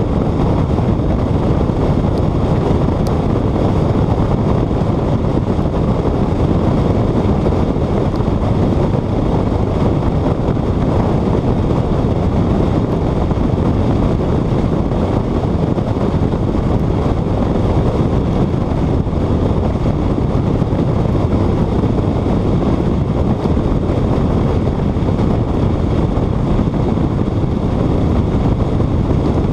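Steady rush of wind buffeting a hood-mounted camera's microphone on a car travelling at speed, over the low rumble of the car and its tyres on the track.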